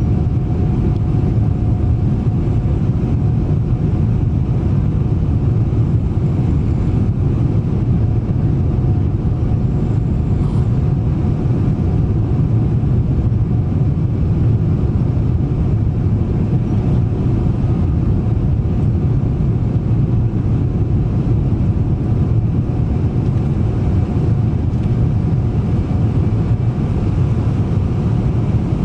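Boeing 777-300 jet engines and rushing air in a loud, steady rumble during takeoff, with a faint steady tone above it.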